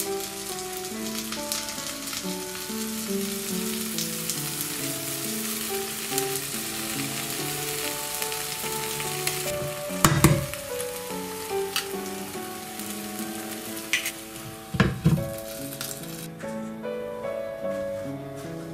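Grated-potato pancake frying in butter in a pan, sizzling steadily under background music. There are a couple of sharp knocks about ten and fifteen seconds in, and the sizzle turns duller near the end once the lid covers the pan.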